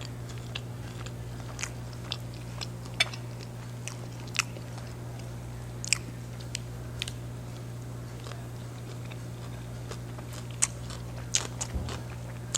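Close-miked eating: a person chewing and biting fried fish, with sporadic crisp crunches and wet mouth clicks. A steady low hum runs underneath.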